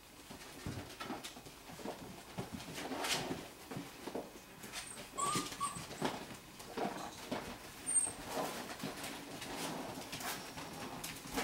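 Five-week-old golden retriever puppies playing: scattered knocks and scuffles of paws and claws on plastic toys and a rubber mat, with two brief high whimpers about five seconds in.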